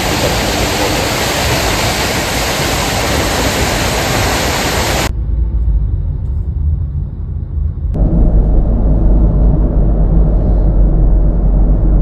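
A waterfall, Otodome Falls plunging 25 m, running with a steady, loud roar that cuts off suddenly about five seconds in. It is replaced by the low road and engine rumble heard inside a car's cabin on an expressway, which grows louder near the end.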